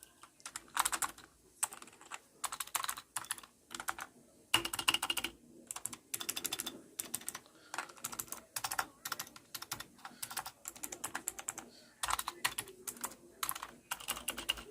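Keys of a Walton WKM001WB semi-mechanical keyboard clicking as they are pressed in quick runs, with short pauses between the runs.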